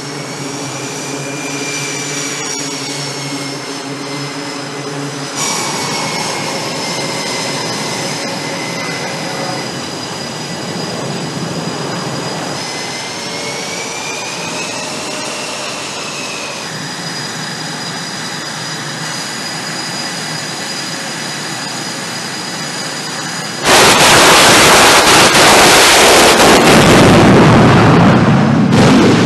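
Carrier jet engines whining on the flight deck, with the turbine pitch gliding slowly up and down. About 24 seconds in, a sudden, much louder roar begins as a jet goes to full power for catapult launch.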